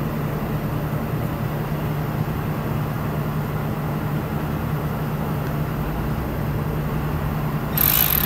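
Steady low drone with a hum throughout; near the end, a Milwaukee M12 cordless 3/8-inch ratchet is triggered briefly, its motor whining up and back down.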